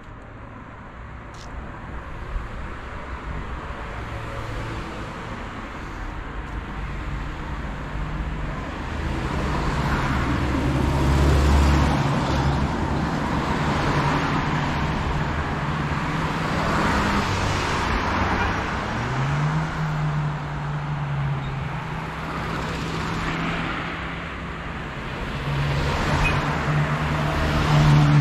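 Street traffic: cars passing one after another with the hum of engines close by. It is quiet at first, grows louder over the first ten seconds, and is loudest near the end as a vehicle's engine runs close.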